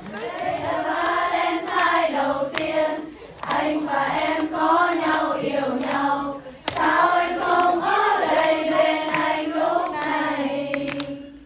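Voices singing a slow Vietnamese pop song unaccompanied, in held, wavering phrases, with a few scattered hand claps.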